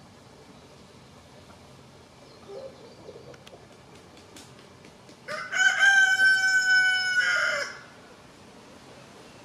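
Rooster crowing once: a single long, loud crow of about two and a half seconds a little past halfway through, preceded by a few soft clucks from the hens.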